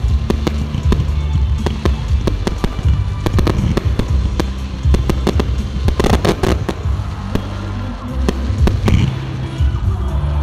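Fireworks display: a fast, uneven run of bangs and cracks, thickest about six seconds in and again near the end, over loud music with steady low bass notes.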